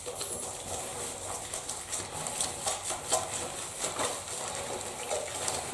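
Bathwater sloshing and splashing lightly as hands work shampoo into a wet cat's head and chin, with irregular small splashes and drips.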